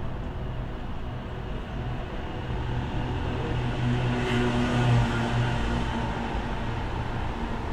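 Steady low rumble of city traffic. One vehicle passes closer, growing louder about four to five seconds in, then fading.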